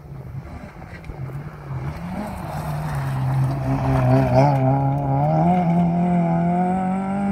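Rally car engine coming closer, passing through a gravel corner and pulling away. Its note wavers as it goes through the corner, then rises steadily as the car accelerates out.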